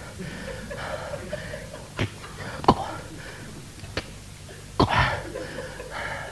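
A man's voice making mouth sound effects for a fight: a few sharp smacks and clicks about a second apart, with faint vocal noises between them.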